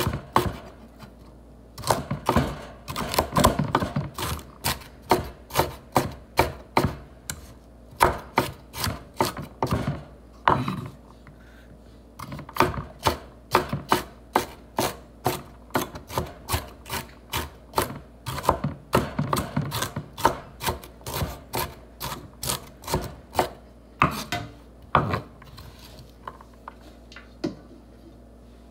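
Kitchen knife chopping fresh vegetables on a wooden cutting board. Runs of quick, sharp knocks come about two to three a second, broken by short pauses.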